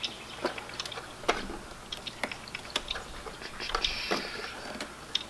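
Small, scattered plastic clicks and light rattles as a taillight's wiring-harness connector is handled and plugged in. A brief rustle comes a little before four seconds in.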